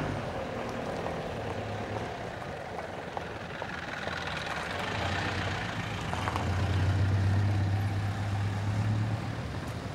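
A motor vehicle engine running steadily with a low hum, louder from about six seconds in and easing again near the end.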